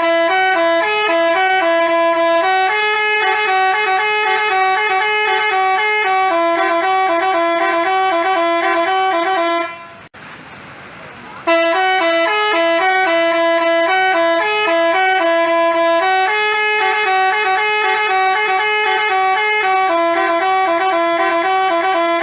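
Telolet basuri musical bus horn playing a tune of stepping notes. The tune cuts off about ten seconds in and starts again a second and a half later.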